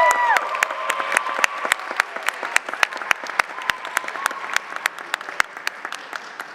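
Audience applauding at the end of a drumming performance, a held shout of cheering ending just after the start, the clapping thinning out and fading away.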